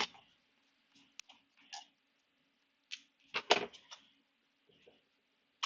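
Plastic casing of a FireAngel carbon monoxide alarm being handled and taken apart: irregular sharp clicks and knocks, the loudest cluster about three and a half seconds in.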